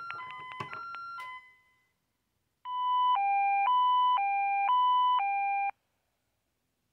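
Keys pressed on a touch-tone desk phone with short electronic tones, then an alarm-style two-tone signal from the Ademco Vista-40 alarm system, heard over the phone line. It alternates high and low every half second for about three seconds and cuts off abruptly.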